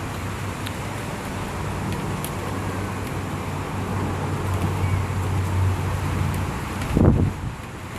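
Steady rain hiss during a thunderstorm, with a low rumble of thunder that swells over several seconds, then a sudden loud low thump about seven seconds in.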